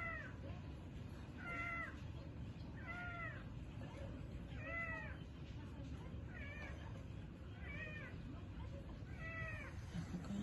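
Mother cat meowing over and over, about seven calls spaced roughly a second and a half apart, each rising and then falling in pitch. Repeated calling like this is typical of a distressed mother cat calling to her dying kitten.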